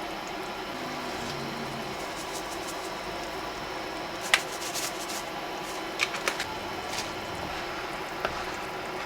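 A steady background hum with a few sharp clicks or taps over it, the loudest about four seconds in and a small cluster a couple of seconds later.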